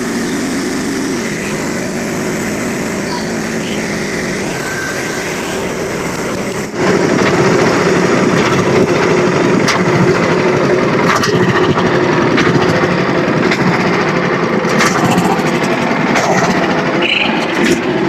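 Small pull-started engine of a portable bandsaw mill running steadily. About seven seconds in the sound gets suddenly louder and stays that way, with scattered clicks and knocks over it.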